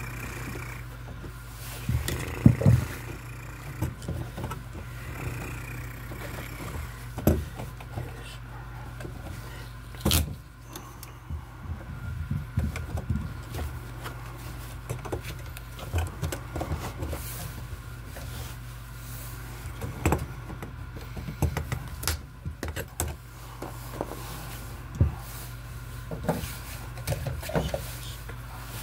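Stripped copper wires handled inside a steel junction box: scattered clicks, taps and scraping as the twisted wires are pulled apart and rub against the metal box, over a steady low hum.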